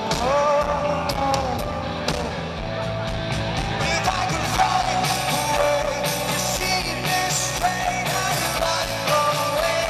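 Rock band playing live: a male lead singer over electric guitar and drums.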